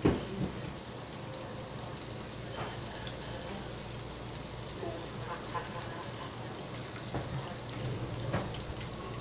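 Pork chop sizzling steadily in oil in a skillet, with a pot of macaroni and cheese boiling beside it. There is a sharp knock at the very start as the skillet is taken by the handle.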